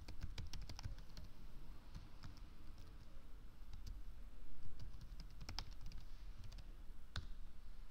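Typing on a computer keyboard: a quick run of keystrokes in the first second, then scattered keystrokes, with one louder single click near the end.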